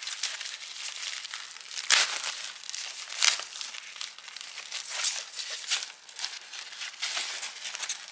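Plastic packing material crinkling and rustling as a foam wrap sheet and a clear zip-lock bag of cables are unwrapped and handled by hand. The sharpest crackles come about two seconds in and just after three seconds.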